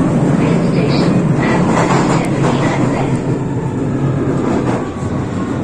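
London Underground Victoria line train (2009 Stock) heard from inside the carriage, running through the tunnel with loud, steady wheel and track noise that eases off near the end.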